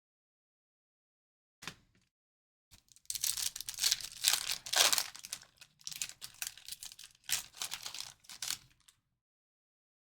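Trading-card pack wrappers being torn open and crinkled: a short rustle near the start, then several seconds of dense crackling and tearing before it stops.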